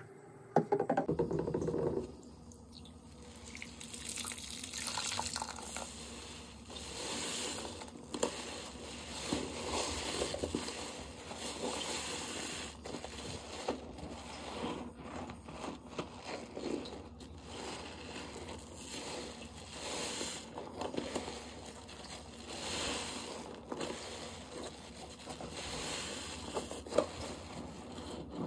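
Wet liquid sounds of pigmented dish soap and water being worked: squishing and dripping that swell and fade every second or two, after a louder burst in the first two seconds.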